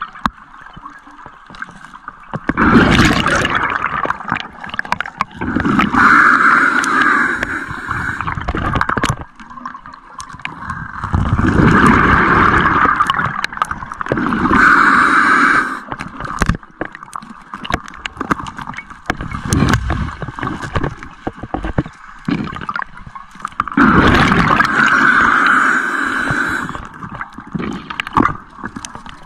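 Scuba regulator breathing underwater: exhaled bubbles gurgle out in about six bursts of a second or two each, a few seconds apart, with scattered small clicks and knocks between them.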